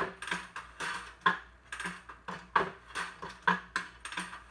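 Double tooth setter working along a band sawmill blade: a quick, uneven run of sharp metallic clicks and clacks, with a few louder knocks, as the blade is indexed and two teeth at a time are set.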